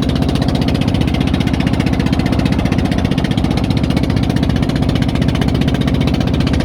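A small boat engine running steadily close by, with a fast, even chugging beat.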